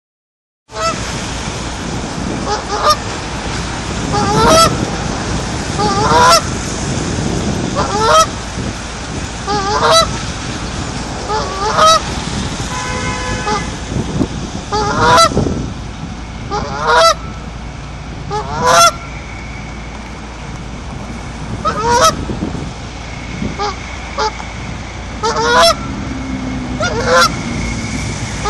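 Canada goose honking loudly, one short honk about every two seconds, about a dozen in all.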